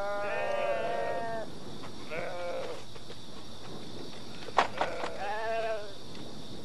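A flock of sheep bleating, several overlapping bleats at first, then single bleats about two seconds in and again near the end. One sharp knock sounds about four and a half seconds in.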